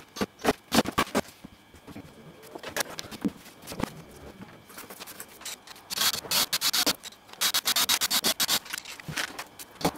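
Handling knocks and clicks of a plywood board and piano hinge, then a cordless drill-driver driving screws through the piano hinge into the plywood in two rapid clicking runs, about six and seven and a half seconds in.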